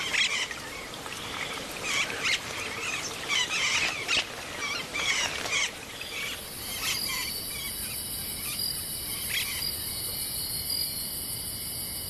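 A flock of austral parakeets chattering and squawking in a busy, irregular stream of calls. After about six seconds the calls fade and a steady, high insect chorus like crickets takes over, with a few faint bird calls.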